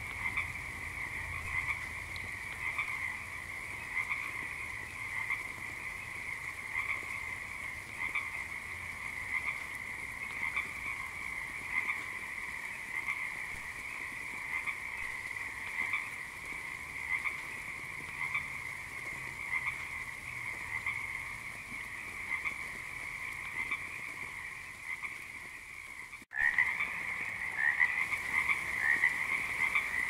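A chorus of frogs croaking continuously, calls overlapping in a steady, pulsing texture. After a brief dropout near the end, the calls come back louder and more distinct.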